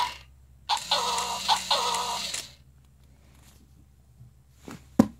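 Tekno robot Dalmatian toy giving out an electronic sound effect from its small speaker: about a second and a half of pulsing, chirpy noise over a steady hum. A few sharp plastic clicks follow near the end.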